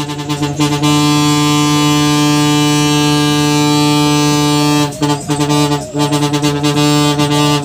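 Private bus air horn blown in one long, steady held blast of several pitches at once. About five seconds in it breaks into a few short toots, then is held again.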